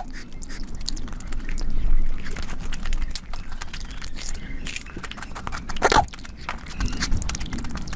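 Close-up eating sounds: fingers squelching through thick, wet curry, then biting and chewing of food with wet mouth noises and a run of short crackling clicks.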